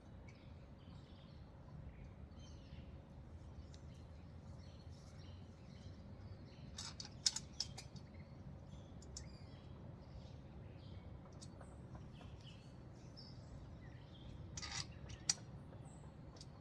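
Birds chirping faintly in the background, with a few sharp clicks of metal trampoline parts being handled, around seven seconds in and again near fifteen seconds, as leg and frame bolts are fitted.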